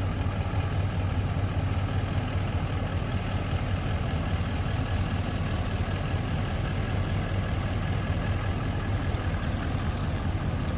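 RV engine running steadily at low speed, a constant low hum with no revving.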